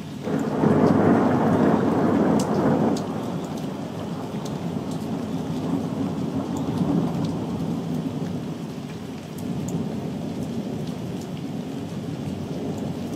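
Thunder rolling over steady rain. A loud peal breaks out just after the start and rumbles for about three seconds, then the rolling carries on more softly without a break and swells again near the end. Rain hisses throughout, with scattered drop ticks.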